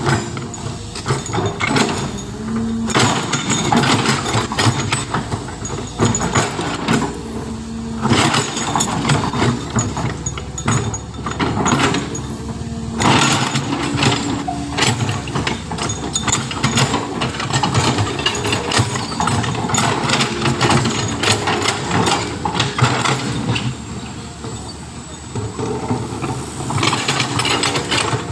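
Heavy diesel machinery running steadily, with frequent sharp metallic clanks and knocks throughout.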